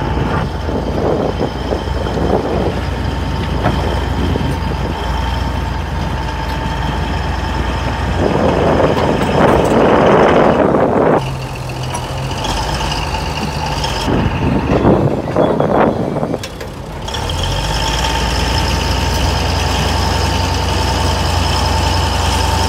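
Caterpillar 966F wheel loader's diesel engine running with a steady whine as it works, swelling under load twice in the middle, then rising and holding as the loaded bucket is lifted over the truck.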